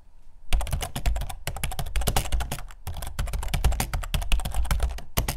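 A rapid, uneven run of sharp clicks and taps, like fast typing on a keyboard, starting about half a second in and broken by a few short pauses.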